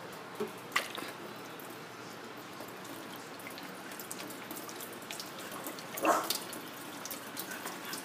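Red drink pouring out of an upturned plastic bottle and splashing into a stainless-steel sink: a steady trickle with scattered glugs and splashes, the loudest a cluster about six seconds in.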